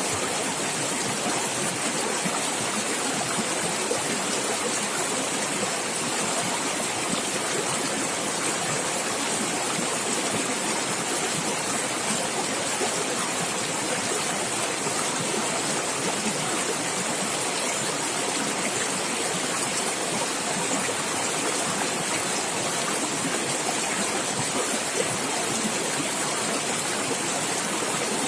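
Running water in a stream, a steady rushing and splashing with no change.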